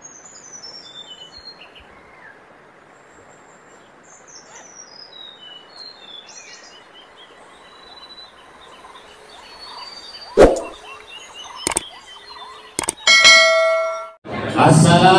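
Birds chirping over a soft hiss, then a few sharp clicks and a ringing bell-like ding near the end. These are the sound effects of a subscribe-button animation.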